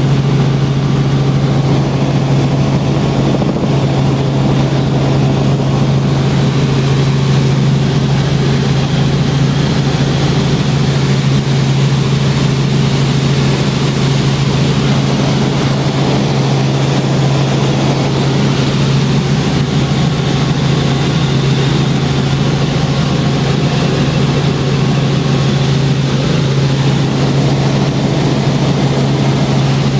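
Helicopter engine and rotor noise heard from inside the cabin in steady flight: a loud, unchanging drone with a strong deep hum.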